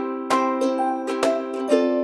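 Background music with strummed plucked-string chords, a new strum every half second or so.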